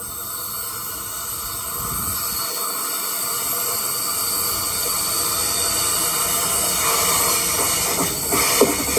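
Sydney Trains Waratah double-deck electric train approaching round a tight curve, growing steadily louder, with a high hiss of wheels on the curved rail building up.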